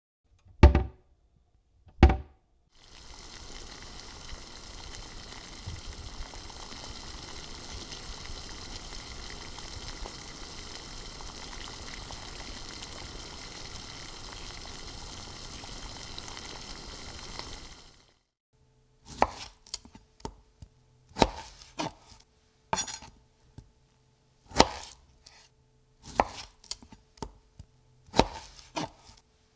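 Two sharp knocks, then a steady hiss for about fifteen seconds that cuts off suddenly. After that, a knife chopping food on a cutting board, a stroke every second or two.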